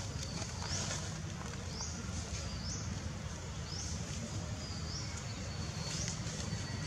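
A short, high chirp rising in pitch, repeated about once a second, over a steady low rumble.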